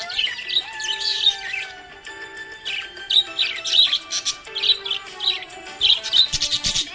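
Budgie chirping and twittering in quick short bursts, several a second, over soft background music with long held notes.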